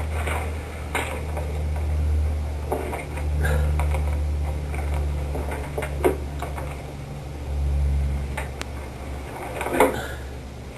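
Steady low hum with scattered soft knocks and clicks, the clearest about six and ten seconds in.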